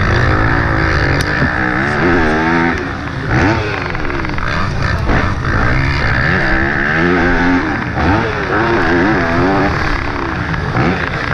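Yamaha YZ250F four-stroke single-cylinder motocross engine under race load, revving up and dropping back again and again through the gears and corners.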